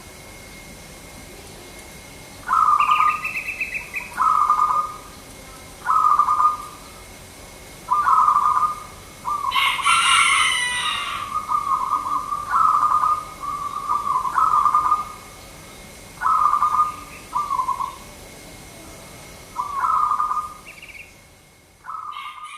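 Zebra dove (perkutut) cooing: about ten short, rolling coo phrases, one every second and a half to two seconds. About ten seconds in, a brief burst of high chirping comes over the cooing.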